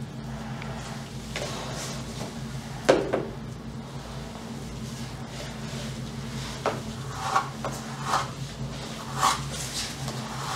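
A wooden stirring stick scraping and knocking in a plastic cup of putty as it is dabbed onto fibreglass. There is a sharp knock about three seconds in and a run of smaller clicks and scrapes later on, over a steady low hum.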